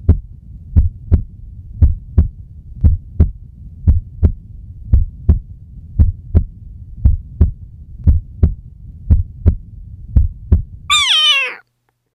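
Heartbeat sound effect: paired low thumps, lub-dub, about once a second. About eleven seconds in, the beat stops and a short call slides down in pitch, like a cat's meow.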